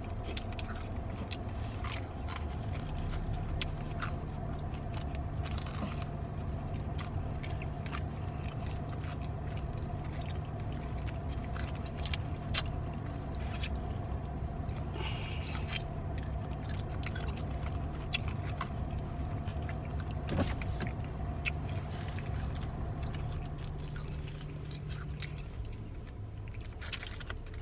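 Steady low hum of a car heard from inside the cabin, with a low steady tone that comes in about three seconds in and stops near the end, and small clicks and rustles of people eating.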